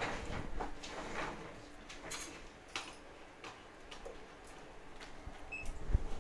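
Scattered light clicks and taps of small phone parts being handled while a phone logic board is being connected up, with a soft thump near the end.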